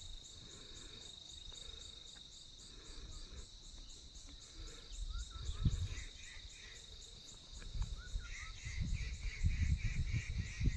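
Insect chorus on a hillside: a steady high-pitched trill under rapid, even chirping at about four a second, with a second, lower chirping chorus joining near the end. Low rumbles on the microphone about six seconds in and again over the last few seconds.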